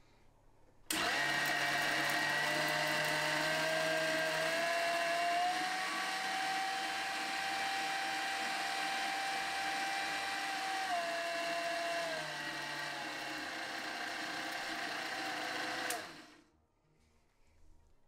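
Refurbished 1950 Kenwood Chef A700 food mixer's motor and planetary whisk head running: the whine starts suddenly about a second in and climbs in pitch as the speed dial is turned up. It steps down twice as the speed is lowered, then cuts off near the end.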